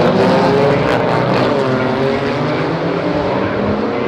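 Several GT4 race cars' engines running at once, their overlapping notes rising and falling in pitch as the cars pass and shift gear.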